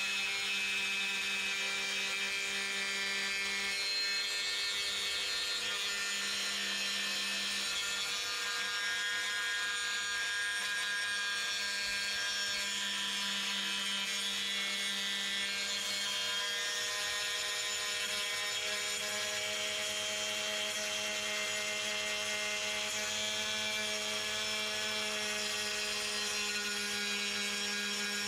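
Rubi TC-125 electric tile saw running steadily, its diamond disc cutting along the edge of a large tile slab as it is pushed along the guide rail: a continuous motor whine over a steady hum.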